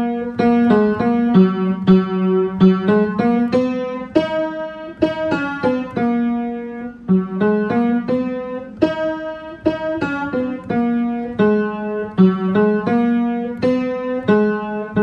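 Piano played by a learner: a simple tune of single notes, two or three a second, over held lower notes.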